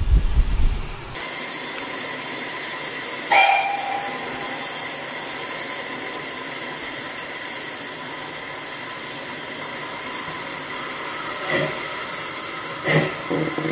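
Steam hissing steadily from a GWR 14xx-class tank locomotive standing at the platform. A low rumble cuts off about a second in, a brief sharp sound comes about three seconds in, and a few knocks come near the end.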